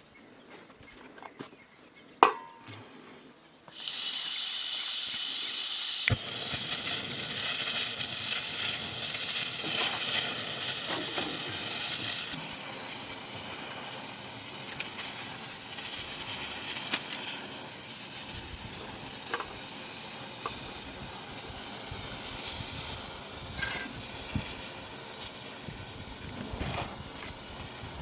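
A sharp click about two seconds in, then a steady hiss that starts suddenly about four seconds in and carries on, easing a little about halfway, with scattered faint clicks over it.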